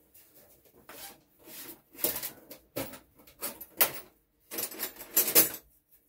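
Metal hand tools clinking and clattering as they are rummaged through and picked up: a run of irregular knocks and scrapes, loudest about five seconds in.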